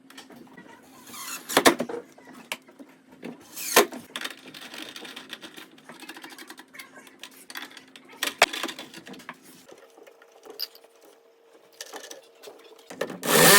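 Scattered knocks and scraping from hand work over a faint steady hum; near the end a much louder sound with a steady pitch starts.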